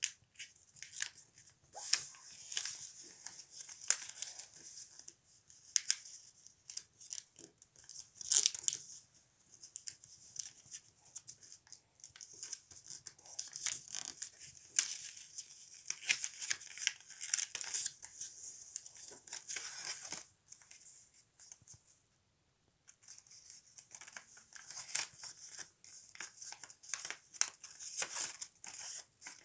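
A sheet of paper being folded by hand: quick, irregular rustles and scrapes as fingers press and run along the creases. There is a short lull about three-quarters of the way in.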